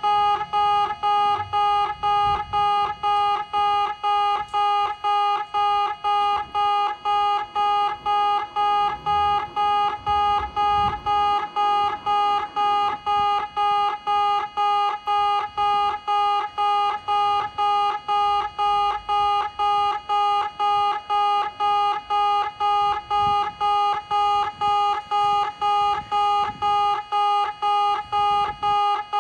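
Kintetsu railway level-crossing bell at Komagatani station's in-station crossing, ringing steadily at about two strokes a second with a bright, pitched tone.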